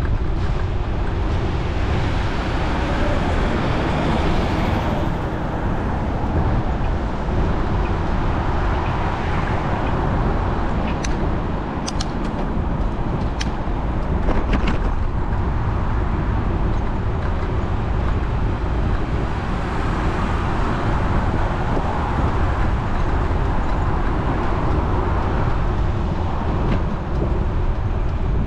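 Steady rumble of city road traffic mixed with wind on the microphone of a moving bicycle, with a few sharp clicks around the middle.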